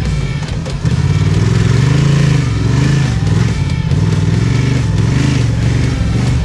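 Parallel-twin adventure motorcycle engine under way, its revs rising and falling repeatedly, about once a second.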